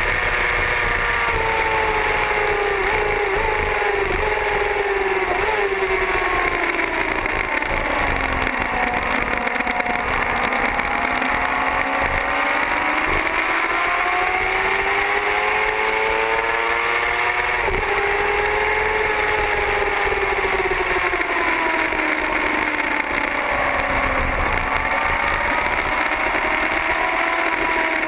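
Motorcycle engine running at track speed, its pitch rising and falling again and again as the rider opens and closes the throttle through corners, with wind rushing over the bike-mounted camera.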